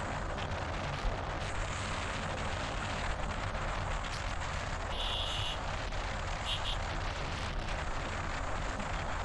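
Wind buffeting the microphone during a motorbike ride, over a steady rumble of engine and road noise. About five seconds in a brief high tone sounds, then a shorter double tone about a second later.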